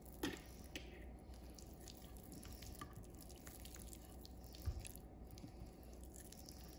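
A hand rubbing seasoning paste into raw steak in a glass baking dish: faint wet squishing with scattered soft clicks, a sharper click just after the start and a low thump about two-thirds of the way through.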